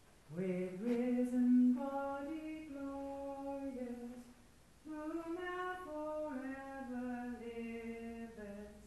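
A person singing unaccompanied inside a small stone church: two slow phrases of long held notes that move in small steps, with a short break about four seconds in.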